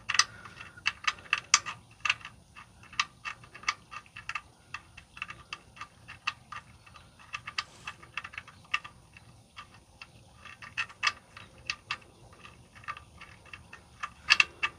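Irregular light clicks and ticks, several a second, as an oil drain plug bolt is fumbled against the oil pan's drain hole while being threaded back in by hand. The plug has not caught its threads yet. A few louder clicks come near the end.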